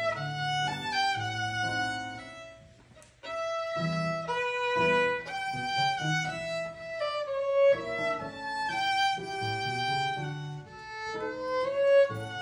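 Violin played with the bow: a melody of held and moving notes. The playing breaks off briefly about three seconds in, then carries on.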